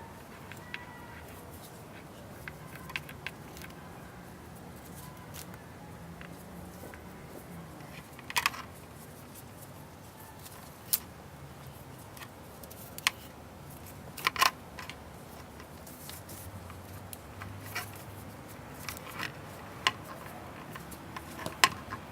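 Scattered sharp clicks and clinks of hand tools and metal parts, a few seconds apart over a faint steady background, while a motorcycle's front end is being taken apart.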